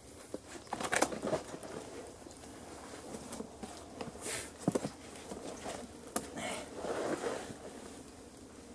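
Scattered rustling and scuffing of branches, leaves and bark as a person shifts position and climbs up in a tree, with a few sharp clicks and knocks, the loudest about a second in.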